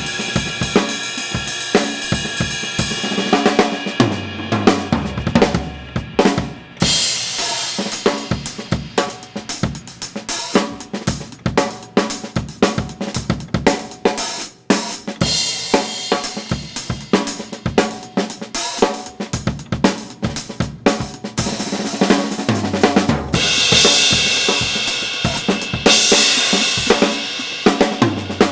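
Acoustic drum kit played solo: fast fills across snare, toms and bass drum, with crashing cymbals near the start and again in the last few seconds.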